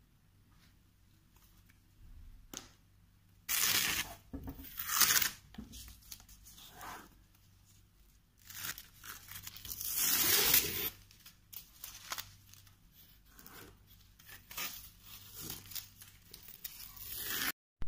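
Masking tape being peeled off painted canvas paper, ripping in several pulls.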